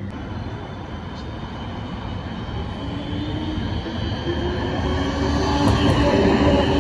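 CAF Urbos low-floor tram approaching on street track and running past, its rumble and wheel noise growing steadily louder, with a low whine from its drive coming in about three seconds in.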